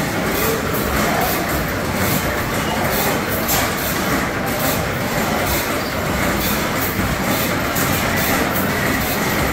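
Antique engines running at once, a steady mechanical clatter with a regular beat about two to three times a second.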